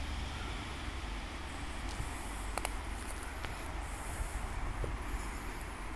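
Steady outdoor background noise: a deep rumble under an even hiss, with a few faint clicks about halfway through.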